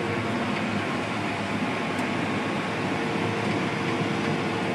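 Combine harvester running steadily under way, a constant mechanical drone with a faint held hum, its unloading auger switched off.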